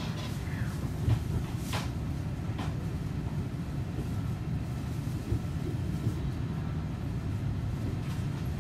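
Seibu 40000 series commuter train running, heard from inside the car: a steady low rumble of wheels and running gear, with a few sharp clicks in the first few seconds.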